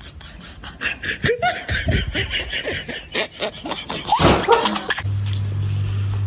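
A person laughing in short bursts, over quick clicks and slaps; the loudest laugh comes just after four seconds in. About five seconds in, a cut brings a steady low hum.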